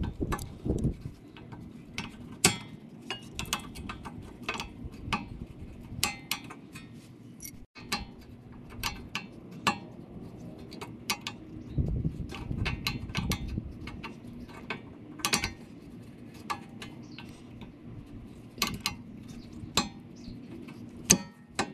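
Light, irregular metallic clicks and clinks as rear brake pads with metal shims are worked and seated into the caliper mounting bracket.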